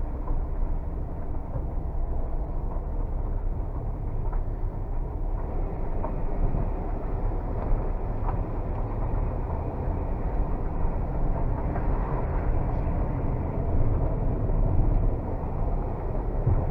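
Car being driven slowly, with a steady low rumble of engine and road noise and no sharp events.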